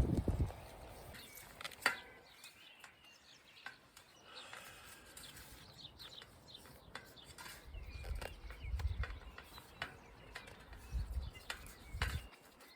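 Outdoor ambience: birds chirping faintly, with gusts of wind buffeting the microphone in the second half and a few sharp clicks or knocks.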